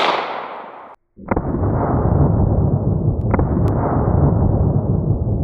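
The ringing tail of a .22 Magnum shot from a Kel-Tec PMR-30 pistol, dying away over the first second. After a sudden cut, a loud, long, low rumble with two sharp cracks about two seconds apart follows, the sound of a slowed-down gunshot.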